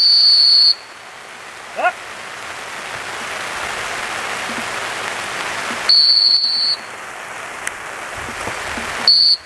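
A dog-training whistle is blown in three steady, high, long blasts: one at the start, one about six seconds in and one near the end. Steady rain hiss runs beneath it.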